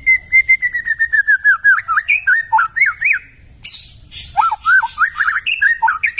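White-rumped shama (murai batu) singing: a fast run of whistled notes that swoop up and down, with thin high chips mixed in, breaking off about three seconds in and starting again a moment later.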